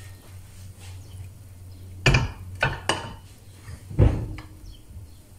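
Glass baking dish knocking against a gas stove's grate as it is handled and set down. There are three quick knocks about two to three seconds in, then the loudest knock about four seconds in with a short ring, over a low steady hum.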